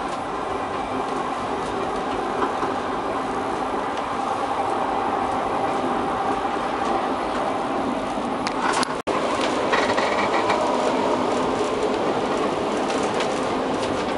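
Trieste–Opicina tram running downhill on its steep section: a steady rumble and rattle of wheels on rails, heard from inside the car. The sound cuts out for an instant about nine seconds in, and a thin wheel squeal follows for about a second.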